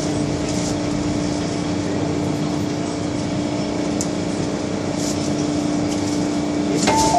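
Interior running noise of an MTR M-Train with a steady hum. The hum cuts off near the end as a two-tone electronic door chime, a higher note then a lower one, sounds while the train's doors open at a station.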